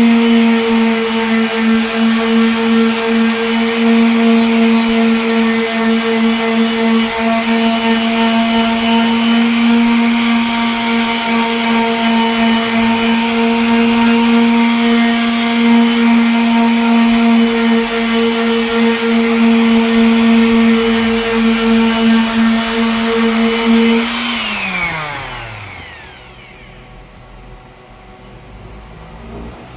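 Electric sander machine running at a steady speed while wet-sanding a headlight lens, then switched off near the end, its hum falling in pitch as it spins down.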